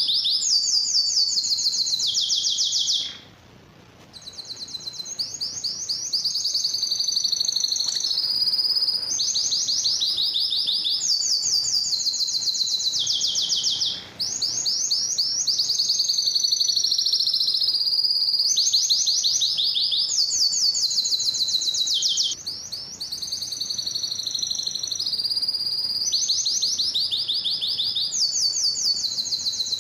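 Male domestic canary singing: a nearly continuous song of rapid, high trills, each run of repeated notes lasting a second or two before switching to another. There is a short pause about three seconds in and a brief break near the middle.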